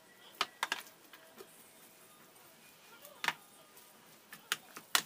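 A plastic rice paddle knocking against a stainless steel tray as cooked rice is mixed with sushi vinegar: a handful of sharp, irregular knocks, the loudest a little past three seconds in.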